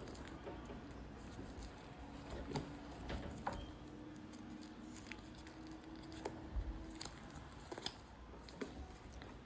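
Faint handling noise of a nylon strap being wrapped around a chair's frame and fed through a metal hoop: soft rustles and a few light, scattered clicks.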